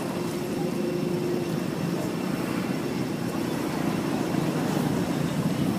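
A steady low, engine-like drone that grows slowly louder toward the end.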